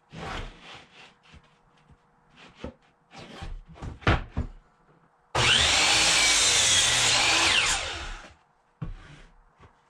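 Wood being handled with scattered knocks, then a power woodworking tool cutting a quarter-sawn oak plank in one loud pass of about two and a half seconds. It starts suddenly, carries a whine that rises and then sinks as the cut ends, and is followed by a few more knocks.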